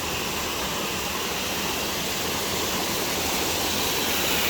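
Shepherd's Dell waterfall: a steady rush of falling water, slowly growing louder.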